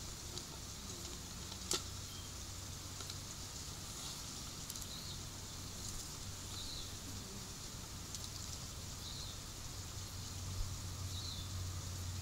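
Outdoor pond-side ambience: a steady high-pitched hiss over a low rumble, with a faint short chirp every two seconds or so and a single sharp click about two seconds in.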